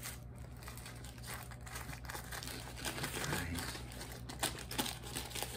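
Paper food wrapping crinkling and rustling as it is unfolded and handled by hand, with many small sharp crackles.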